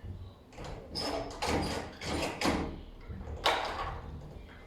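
A door and its newly refitted doorknob being handled: a series of clacks and knocks from the knob, latch and door, the loudest about three and a half seconds in.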